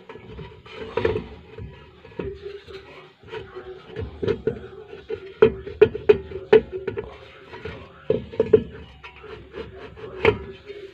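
Suzuki Gypsy rear brake drum being slid onto the hub over the brake shoes and worked by hand to check the shoe adjustment: metal knocks and scrapes. A quick run of four sharp knocks comes about halfway through, with heavier knocks near the start, later on and near the end.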